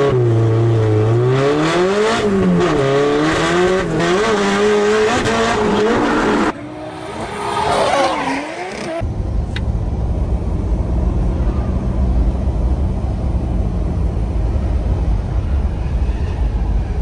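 A drift car's engine revving up and down hard, heard from inside the cabin, over tyre noise as it slides. About six and a half seconds in, the sound changes to a drift car's engine revving as it slides past. From about nine seconds, a steady low rumble.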